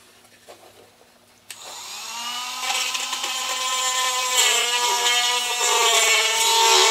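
Handheld rotary tool switched on with a click about a second and a half in, spinning up with a rising whine, then running at high speed with a wavering pitch as it grinds out a hole in the sign's wooden base to make it bigger.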